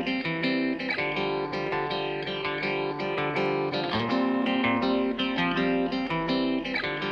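Intro music with plucked guitar playing a repeating chord pattern.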